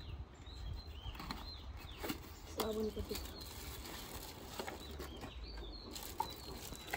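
Cardboard box and packaging being handled, with scattered clicks and rustles, while small birds chirp in the background.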